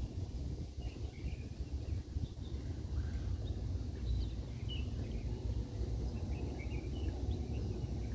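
Outdoor ambience: a steady low rumble with scattered short, high bird chirps throughout.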